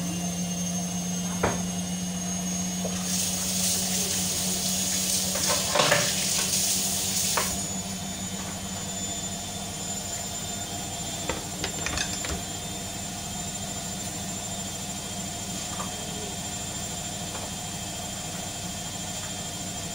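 Kitchen handling sounds: a few sharp clicks and knocks, and a rustling hiss lasting about four seconds from about three seconds in, over a steady low hum.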